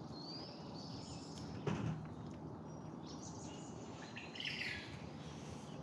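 Small birds chirping and trilling intermittently over a steady outdoor background, with a brief low thump about a second and a half in.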